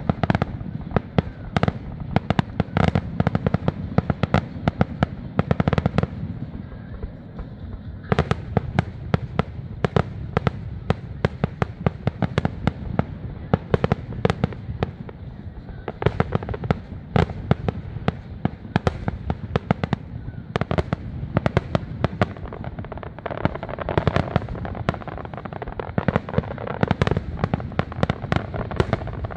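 Aerial fireworks going off in a rapid barrage, many sharp reports a second, the booms echoing into a continuous low rumble. The bursts thin out briefly about six seconds in, then build back up.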